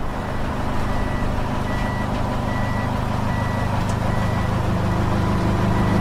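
A snow-covered truck's engine running steadily while its reversing alarm beeps, a short high beep repeating a little faster than once a second.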